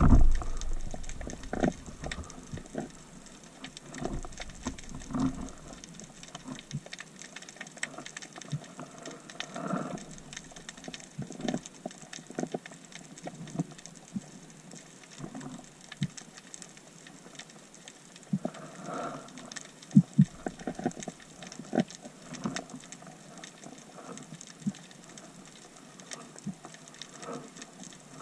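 Underwater ambience recorded on a speargun-mounted camera: irregular clicks and knocks over a faint hiss, with a low rumble in the first few seconds and a sharper knock about twenty seconds in.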